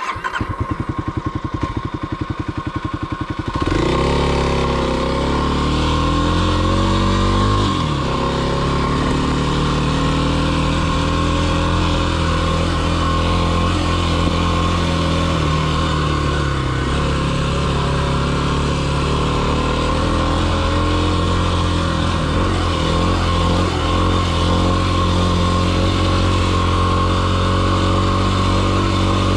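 Kawasaki KLX300's single-cylinder four-stroke dirt-bike engine idling with an even pulse, then about three and a half seconds in it pulls away under throttle, its pitch rising and falling before it settles into steady running.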